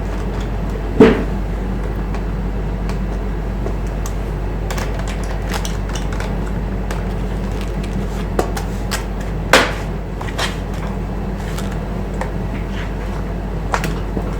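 Clicks and knocks of a laptop's plastic bottom cover and screwdriver being handled while the cover screws are tightened, with two louder knocks, one about a second in and one after about nine and a half seconds, over a steady low hum.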